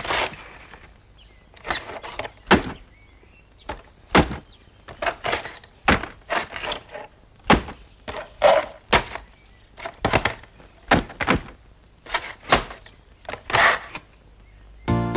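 Wooden crates of apples being set down and stacked on one another: a long run of separate hollow wooden knocks at an uneven pace, roughly one every half second. Music comes in right at the end.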